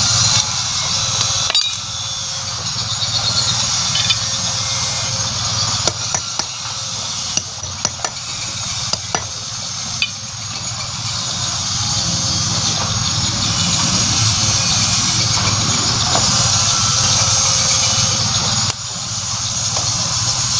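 Scattered metal knocks and clinks of hand tools working on motorcycle engine parts, over a steady background noise.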